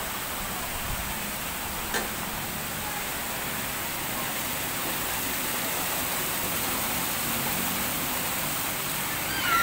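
Steady rush of water flowing through a spring-fed resort pool. There is one short knock about two seconds in.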